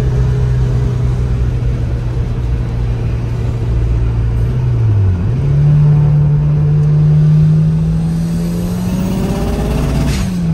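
Turbocharged 4G63 four-cylinder engine of a 1998 Eagle Talon TSI AWD under way. The engine holds a steady pitch, dips briefly about five seconds in, then runs at higher revs and climbs slowly as the car accelerates hard, and it drops off just before the end.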